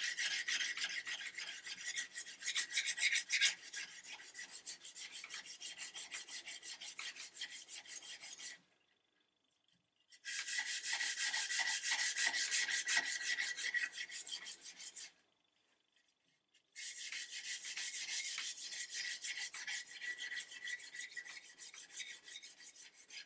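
A hand-held pad scrubbing back and forth along a wooden rifle stock in quick scratchy strokes, stripping off varnish softened by paint stripper. The scrubbing stops twice for about a second and a half.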